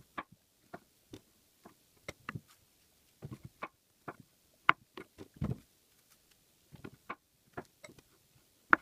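Knife tapping on a plastic cutting board as peeled bananas are sliced: irregular short taps, about two a second, some with a soft thud.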